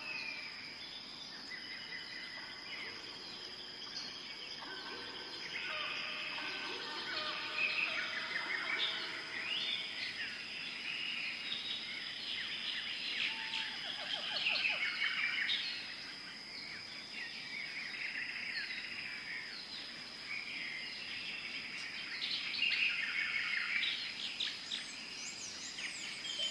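Many birds chirping and calling over one another, with a steady high-pitched whine underneath, louder in bursts now and then.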